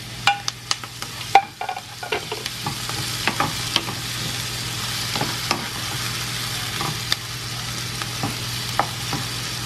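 Diced tomatoes sizzling in hot oil with sautéed onion and garlic in a frying pan, while a wooden spoon stirs them and knocks against the pan. The knocks are thickest at the start, and the sizzle builds to a steady hiss after about two seconds.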